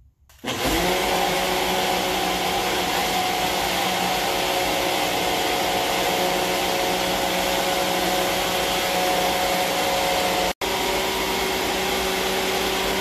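Personal push-to-run blender running, its motor whining steadily as it grinds oats with milk, water and cinnamon into a drink. It cuts out for an instant about ten and a half seconds in, then runs again and stops at the end.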